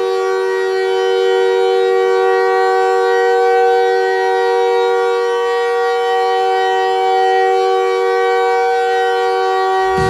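Montreal Canadiens goal horn blowing one long, steady chord of two low notes, held without a break.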